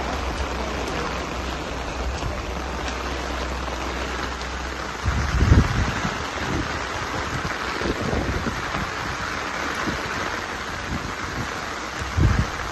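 Steady hiss of rain falling, under a low rumble that stops about five seconds in. Two short bumps of buffeting on the phone's microphone, one about five seconds in and one near the end, are the loudest moments.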